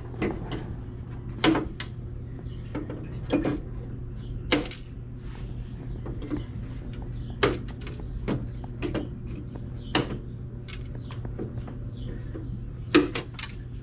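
Irregular light clicks and knocks of small parts being handled, a few of them sharp, over a steady low hum.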